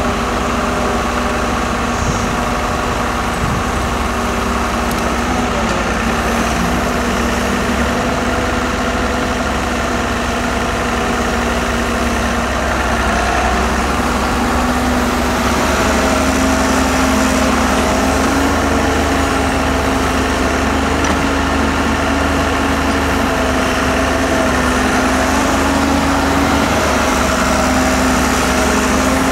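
Diesel engine of a Hyundai Robex 1300W wheeled excavator running steadily as it works. The drone gets a little louder and higher in pitch about halfway through.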